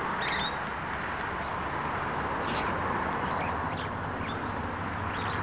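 Steady outdoor background noise with a low hum, and a few faint bird chirps now and then.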